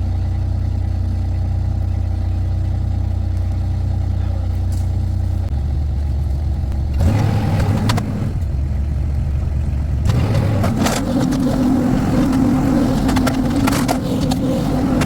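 Mini skid steer's engine running steadily, then rising to a higher, working pitch under load from about five seconds in, with cracking and clattering as the machine pulls out bushes and their roots.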